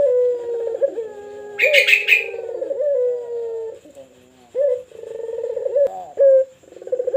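Puter pelung (domestic collared dove) cooing: a run of deep, drawn-out coos with a rolling trill, each sliding slightly down in pitch. A short, higher, rougher call cuts in about two seconds in.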